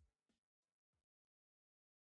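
Near silence: the last faint notes of background music die away within the first half second, then nothing at all.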